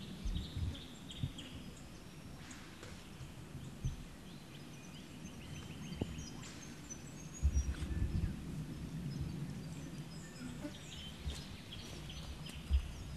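Outdoor ambience of birds chirping and calling, many short, high notes scattered throughout, over a low steady rumble with a few soft knocks.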